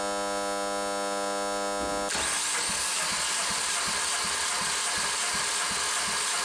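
Bare 1.4 Duratec engine being turned over for a compression test on its fourth cylinder. A steady electric hum gives way, about two seconds in, to a harsher cranking whir with low rhythmic pulses about three to four a second as the cylinders come up on compression.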